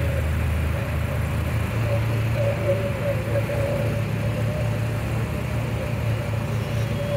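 Engine of an open side-by-side off-road vehicle running steadily while driving along a gravel road, heard from on board: a low drone with a wavering mid-pitched whine over it.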